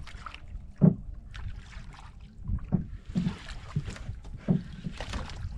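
Water slapping and knocking against the hull of a small outrigger boat at sea: irregular low thumps, the strongest about a second in, with splashing hiss and wind on the microphone.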